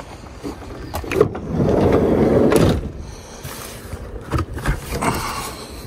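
Toyota Sienna minivan's sliding side door being opened: a latch click about a second in, then the door rolling open for about a second and a half, followed by a few softer clicks and handling sounds.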